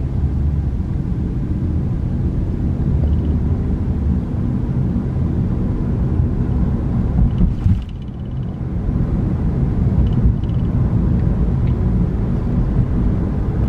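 Car road and engine noise heard inside the cabin while driving: a steady low rumble, with a brief dip and a click about eight seconds in.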